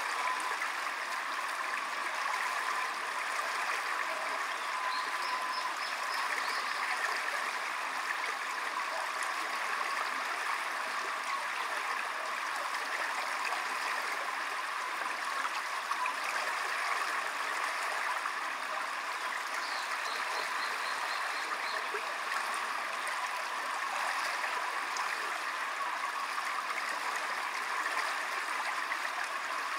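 Small mountain stream running steadily past a concrete bank, a constant rush of water. Two faint, brief high trills come through it, about five and about twenty seconds in.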